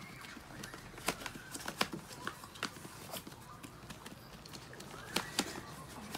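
Chihuahuas' claws clicking irregularly on the floor as the dogs move about the pen, loudest about two seconds in, with a short high whine about five seconds in.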